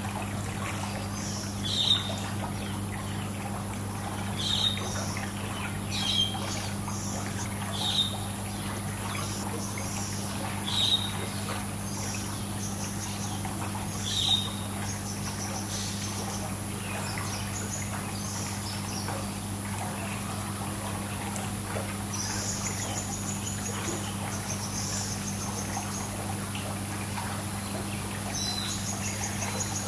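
Songbirds chirping over trickling pool water: one bird gives a short, sharp call every two to three seconds through the first half, and other birds trill higher in the second half. A steady low hum runs underneath.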